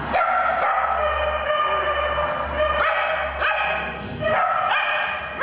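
Several small dogs whining and yelping together, long high overlapping whines with new yelps rising sharply about three seconds in and again near the end.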